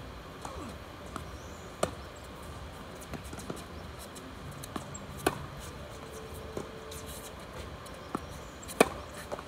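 Tennis racket strokes on a tennis ball during a rally: sharp pops roughly every three and a half seconds, the loudest near the end, with fainter ticks between them.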